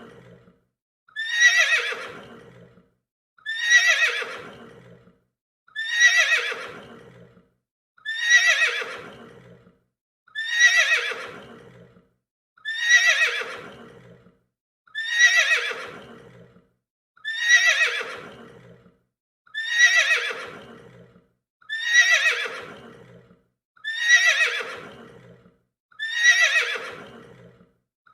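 A horse whinnying, the same whinny repeated about every two seconds; each one starts loud and falls in pitch as it fades.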